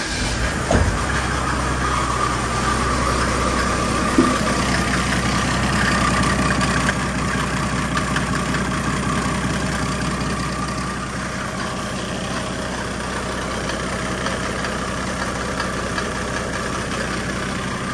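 Mercedes-Benz OM606 3.0-litre inline-six turbo diesel, newly fitted with an HX35 turbocharger, idling steadily just after starting. A faint steady whine sits above the engine's run.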